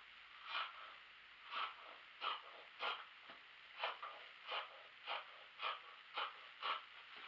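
Scissors cutting through cloth: about ten short snips in a steady rhythm, roughly one every half to two-thirds of a second.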